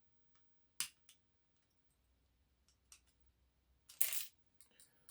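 A few small, sharp metal clicks, then about four seconds in a short louder scraping snap: a retaining C-clip being pried off the back of a lock cylinder with a small tool.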